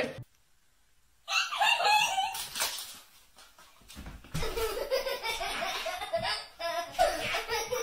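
People laughing, starting about a second in after a short silence.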